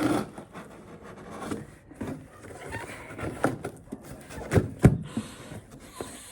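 Rubbing, rustling and small clicks of a parcel and its packaging being handled and opened, with two sharp knocks about four and a half seconds in.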